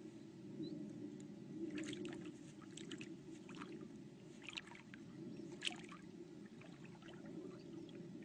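Faint water sounds: a few short splashes and trickling over a steady low hum.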